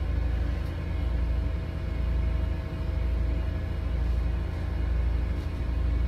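A steady low rumble with a faint steady hum above it, swelling gently every second or so.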